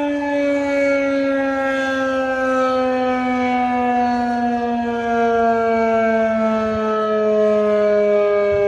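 Federal Signal 2001-130 outdoor warning siren sounding loudly, its tone gliding slowly and steadily downward in pitch.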